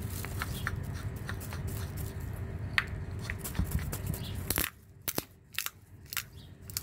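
Walnut shell cracking in a wooden screw-type nutcracker as the screw is turned down, about five sharp cracks roughly half a second apart in the second half. Before them there is a low rumble.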